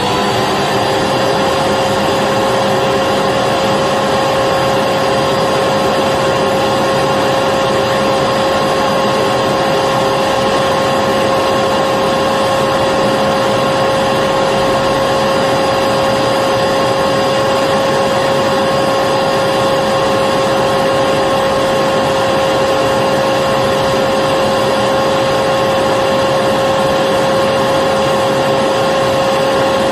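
Electric vacuum cleaner running steadily at full speed: a high, even motor whine over a constant rush of air. It settles to pitch in the first moment after switching on.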